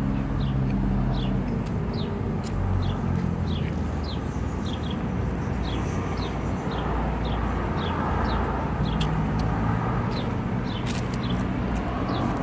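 Outdoor traffic ambience: a steady low rumble of road vehicles, with a bird repeating a short, falling chirp about twice a second.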